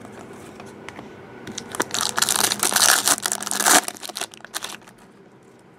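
Foil trading-card pack wrapper torn open and crinkled by hand, loudest for about two seconds in the middle, then a few lighter crackles as it is crumpled and set aside.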